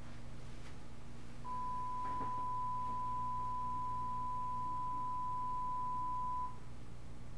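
Steady 1 kHz reference test tone of the kind that runs with colour bars, a single pure tone starting about a second and a half in and cutting off cleanly about five seconds later, over a faint low hum.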